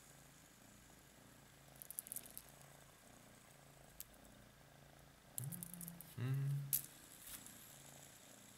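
Domestic tabby cat purring softly in a slow rhythm, with a few faint clicks. A man's voice sounds briefly twice, a little past the middle, without words.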